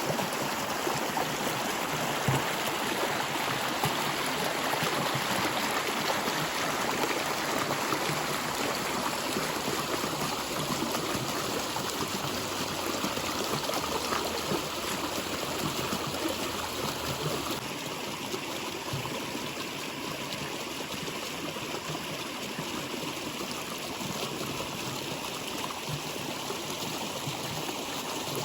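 Water flowing in a stream: a steady rush with small splashes and trickles, easing slightly about two-thirds of the way through.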